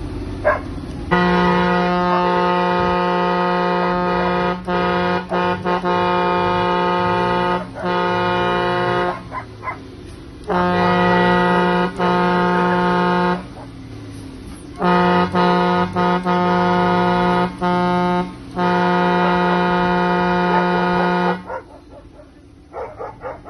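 A horn blown in a series of long, loud blasts of one steady pitch, about five in a row with short breaks between them.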